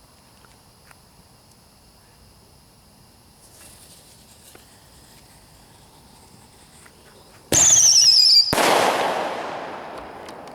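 A firework going off: a shrill whistle, falling slightly in pitch, for about a second near the end, then a sudden loud burst with a hissing spray that fades over about two seconds.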